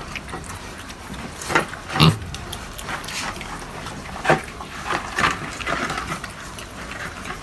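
Young pigs grunting in short separate grunts, about six of them, the loudest about two seconds in.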